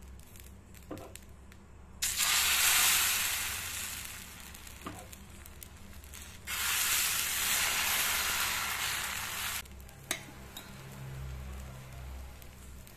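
Adai batter sizzling as it is ladled onto a hot dosa griddle (tawa). Two bursts of sizzling: one starting suddenly about two seconds in and dying away, the other starting suddenly about six and a half seconds in and stopping about three seconds later.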